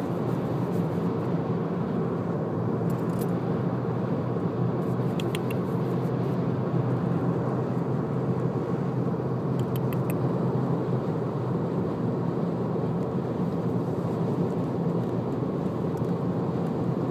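Steady low hum and rumble of a moving car's cabin, with a few brief faint clicks.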